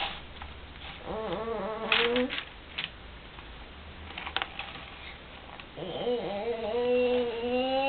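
A baby's voice making a drawn-out, wavering vocal sound twice: a short one about a second in and a longer one from about six seconds, rising in pitch near the end. A few short crackles come in between.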